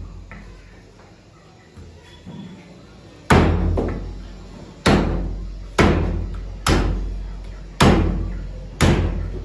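Meat cleaver chopping chicken on a thick wooden butcher's block: six heavy chops about a second apart, starting a third of the way in, each a sharp hit with a low thud from the block that fades away. A couple of light knocks come before the first chop.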